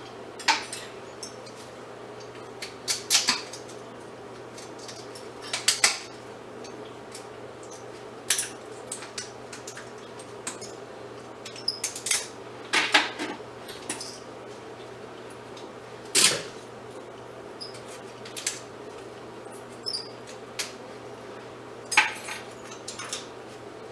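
Metal parts of a fluorescent light fixture clinking and knocking as it is taken apart by hand for scrap, in scattered sharp knocks every second or two.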